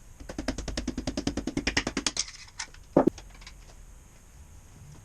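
Hand ratchet clicking rapidly, about a dozen clicks a second for two seconds, as a bolt is run down during engine short-block assembly. A single sharp metal knock follows about a second later.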